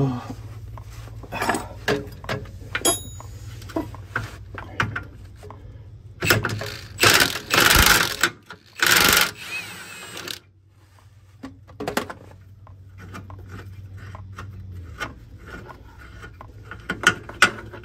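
Cordless impact wrench hammering on an 18 mm steering rack mounting bolt in three bursts, about six to nine and a half seconds in, to break it loose and back it out. Small clicks and knocks of the tool and socket come before and after.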